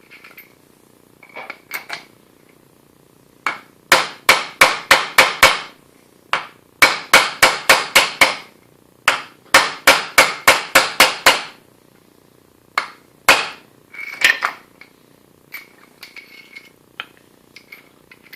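Hammer tapping on a socket used as a driver, pressing ball bearings onto a shaft: three runs of quick, even strikes at about five a second, then a few single taps.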